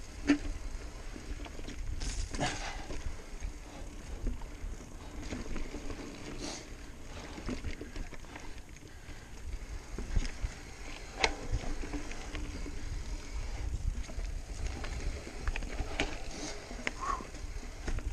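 Mountain bike ridden over rocky, technical dirt singletrack: tyres rolling over dirt and rocks under a steady low rumble, with the bike knocking and clattering over bumps several times.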